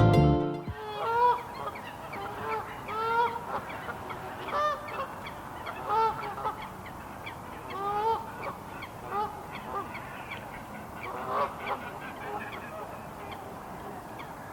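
Music cuts off about half a second in, then geese honk repeatedly, a short call every second or two.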